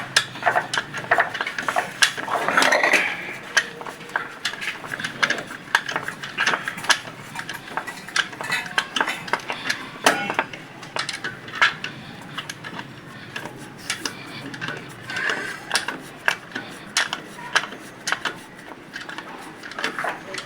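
Metal hand tools clinking and tapping on the valve gear of a Ford 5000 tractor engine while the valve clearances are set: many sharp, irregular clicks and knocks, with no engine running.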